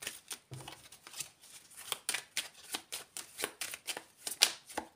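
A deck of oracle cards being shuffled by hand: an irregular run of quick card clicks, about four a second, with the sharpest snap near the end.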